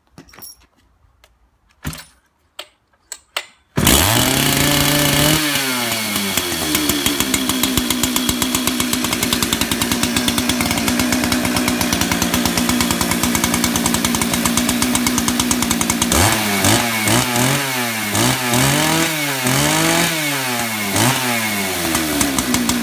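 ICS 633GC gas-powered two-stroke concrete chain saw. After a few clicks it starts about four seconds in, revs up and runs steadily at high speed, then near the end is revved up and down several times.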